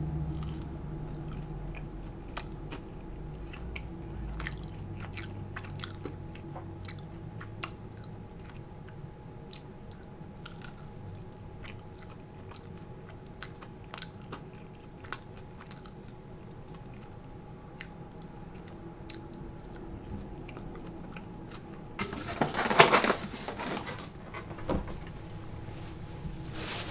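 Close chewing of a crisp, breaded deep-fried mac and cheese bite, with many small scattered crunches. About 22 seconds in, a louder burst of movement noise lasting about two seconds as the eater gets up from the chair.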